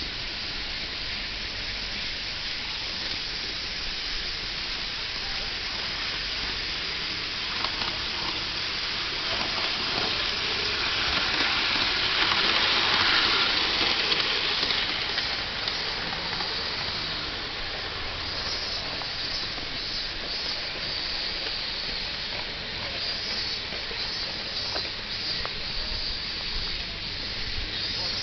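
Small ride-on live-steam locomotive running on a miniature track: a steady steam hiss that swells as it passes close, about halfway through, then eases off.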